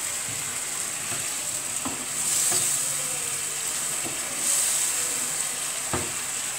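A masala of spices and yogurt sizzling in a frying pan as it is stirred with a wooden spatula. The sizzle swells twice, and there are a few light knocks of the spatula against the pan.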